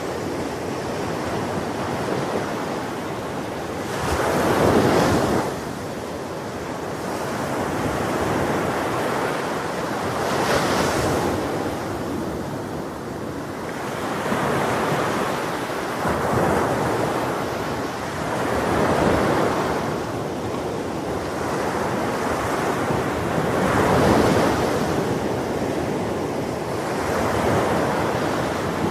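Ocean surf breaking on a beach, each wave swelling and washing out about every four to five seconds.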